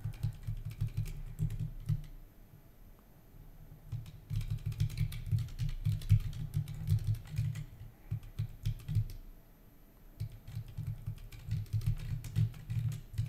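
Computer keyboard typing in quick bursts of keystrokes, pausing twice for about two seconds.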